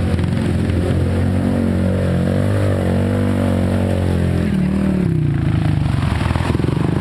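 Yamaha Rhino side-by-side's engine running under throttle as it drives past. Its pitch drops about four and a half seconds in as it eases off, then it runs on at lower revs.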